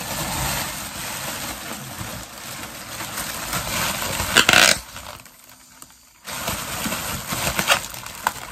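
Clear plastic packaging crinkling and rustling as it is handled and scrunched, with a louder rustle about four and a half seconds in and a pause of about a second before the crinkling resumes.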